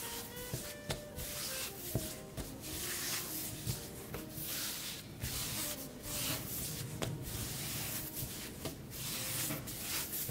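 Hands rolling and rubbing a floured log of baguette dough against a board: soft brushing of skin on dough in repeated strokes, with the odd light tap.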